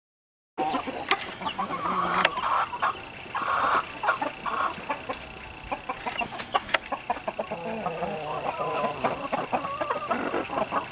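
Domestic chickens clucking in short calls one after another, with scattered sharp clicks and a steady high-pitched tone underneath; the sound begins abruptly about half a second in.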